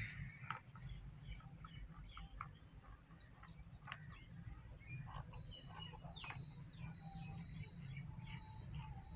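Scissors cutting through folded dress fabric along a chalk line, with faint scattered snips. Birds chirp in the background.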